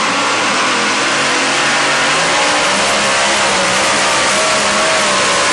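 Supercharged engine of a two-wheel-drive pulling truck running hard under load as it drags the weight sled, its pitch wavering and creeping upward.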